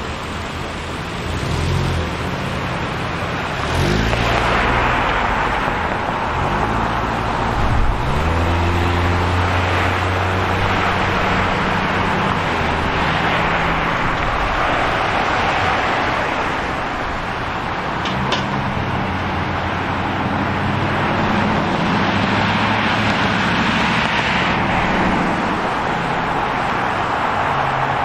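City street traffic: cars passing and engines running, with engines speeding up and pulling away about four and eight seconds in. A brief high squeak comes about two-thirds of the way through.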